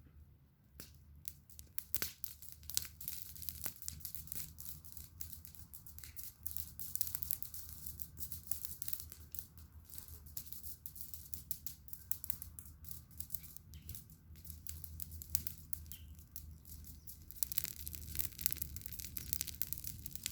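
Campfire crackling: a dense, irregular run of sharp snaps and pops that grows busier over the last few seconds, over a steady low rumble.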